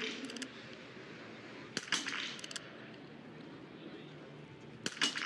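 Small-bore .22 biathlon rifle fired from the prone position: sharp shots about two and five seconds in, each followed about half a second later by a quick rattle of clicks from the straight-pull bolt being worked for the next round; a similar rattle right at the start follows a shot just before.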